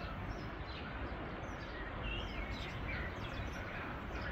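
Several small birds chirping in short rising and falling calls over a steady outdoor rushing noise with a low rumble underneath.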